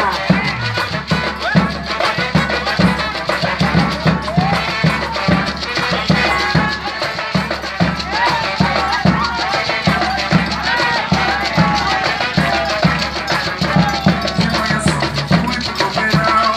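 Coco music, the Brazilian folk music for the coco dance: a steady, driving drum beat with shakers, and voices singing over it.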